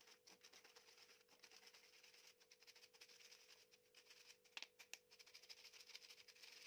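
Very faint scratching of a plastic spoon stirring and pressing ground sugar and cardamom through a fine plastic mesh sieve. There are a couple of light clicks about four and a half seconds in, over a faint steady hum.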